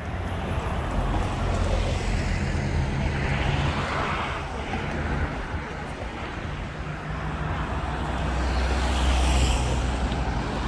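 Road traffic going past: a steady low rumble of vehicle engines over tyre and street noise. It swells as vehicles pass, once about a third of the way in and again near the end.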